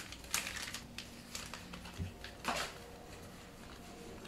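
Soft rustles and light clicks of a foil trading-card booster pack being opened and its cards handled, a few separate sounds with the strongest about two and a half seconds in.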